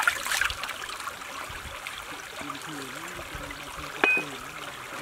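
Stream water running steadily, with splashing of water over the softshell turtle's carcass being rinsed at the start. About four seconds in comes one sharp knock of a cleaver striking the turtle on the wooden chopping board, with a brief metallic ring.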